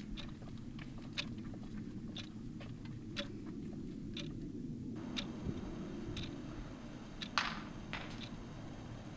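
Ticking about once a second, like a clock, over a low steady hum, with one brief louder rustle about seven seconds in.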